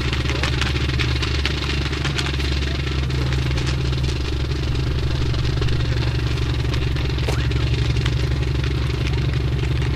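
A steady low drone, with faint clicks and rattles of M1 rifles being handled in a drill routine.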